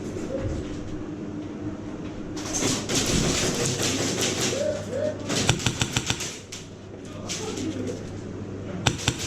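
Rustling movement, then a quick string of sharp airsoft gun shots, about seven in under a second. A second short burst of shots comes near the end.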